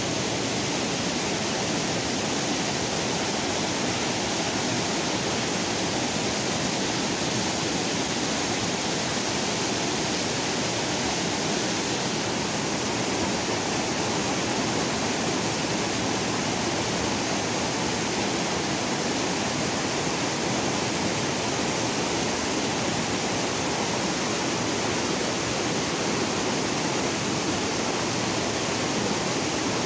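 River rapids rushing over boulders: a steady, even rush of white water.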